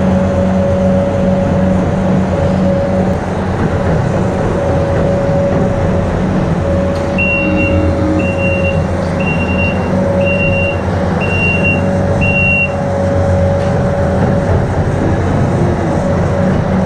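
A farm machine's engine running steadily under load, likely a loader or tractor spreading sawdust. Partway through, its reversing alarm beeps six times, about once a second, as it backs up.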